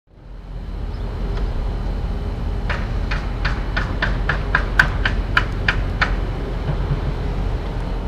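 A steady low vehicle engine rumble, fading in over the first second. About three seconds in, a run of about a dozen sharp clacks comes at about three a second and lasts some three seconds.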